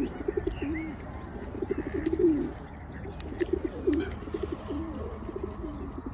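Feral pigeons cooing, several low, pulsing coos in overlapping bouts that come and go every second or so.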